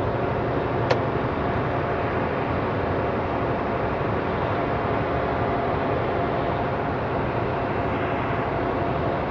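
Semi truck with a trailer running at highway speed, heard from inside the cab: steady engine and road noise, with a single sharp click about a second in.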